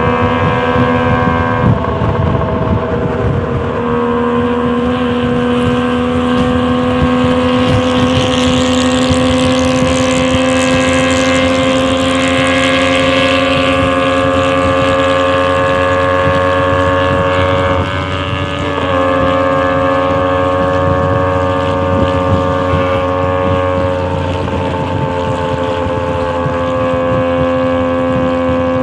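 Suzuki Carry ST20 pickup's three-cylinder two-stroke engine held at high revs in a race, a steady high engine note that dips briefly a few times and picks up again, with wind rushing past.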